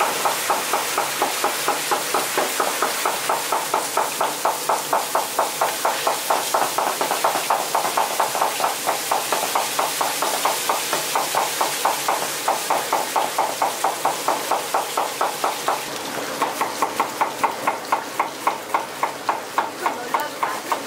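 Water running and spilling over the rim of a large kettle as raw pork belly strips are rinsed by hand, with a fast, even pulsing about five times a second throughout.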